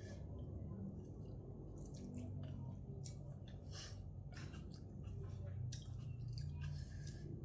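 Close-up wet chewing and mouth clicks of a person eating a glass-noodle seafood salad (yum woon sen), over a low steady hum.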